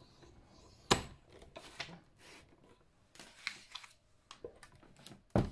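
Clear acrylic cutting plates of a hand-cranked die-cutting machine being handled after a pass: a sharp plastic knock about a second in, light taps and paper rustles, and another knock near the end.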